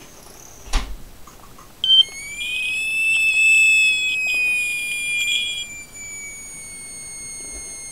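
Probe 101 smoke detector alarm sounding on test. A click, then from about two seconds in a high alarm tone that slowly sinks in pitch and grows fainter toward the end. It is not healthy: the battery terminals are corroded beyond belief.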